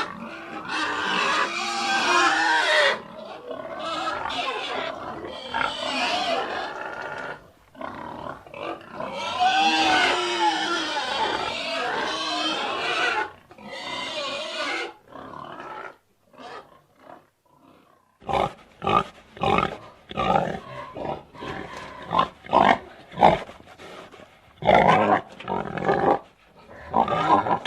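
Pigs squealing in long shrill bouts for about the first fifteen seconds, then a run of short separate grunts, a few a second.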